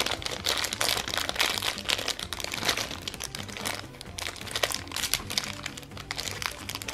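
Thin clear plastic bag crinkling and crackling as fingers pull and tear it open, over background music.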